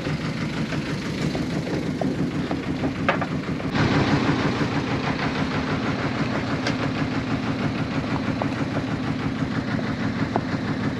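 Fishing boat's engine idling steadily, a low even hum with a few light clicks; about four seconds in it becomes louder and hissier.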